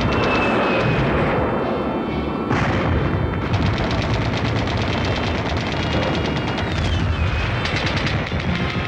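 Battle sound effects: rapid gunfire and explosions over a continuous low rumble, with a short falling whistle about seven seconds in.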